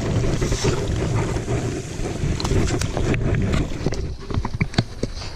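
Gusty wind buffeting the microphone, a heavy low rumble, with a scatter of short sharp clicks and taps in the second half.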